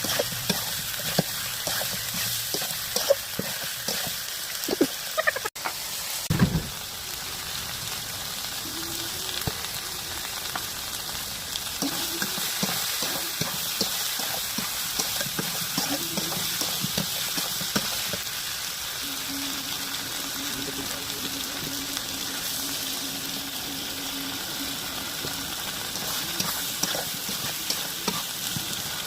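Chicken frying and sizzling in hot oil in a cooking pot: a steady hiss, with sharp knocks of stirring in the first six seconds and one dull thud at about six and a half seconds.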